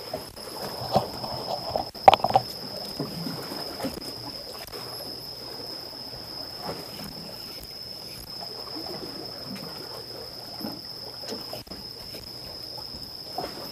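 Water sloshing and lapping, with a few sharp clicks or knocks about two seconds in, over a steady high-pitched whine.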